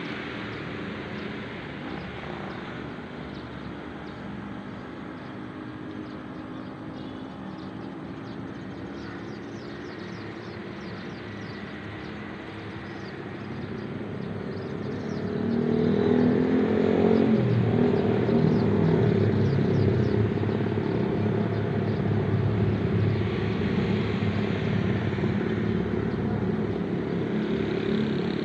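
A motor vehicle engine running, growing clearly louder about halfway through as it comes close.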